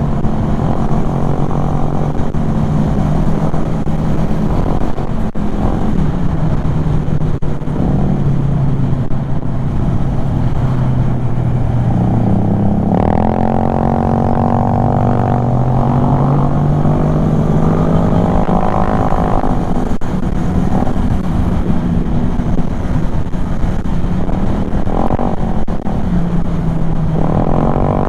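Kymco Xciting 400 maxi-scooter's single-cylinder engine running under way, its pitch climbing as the throttle opens about halfway through, easing back, then rising again near the end.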